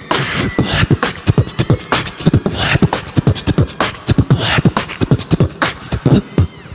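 Beatboxing into a handheld microphone over a PA: a fast run of vocal kick-drum thumps with snare-like hisses and clicks.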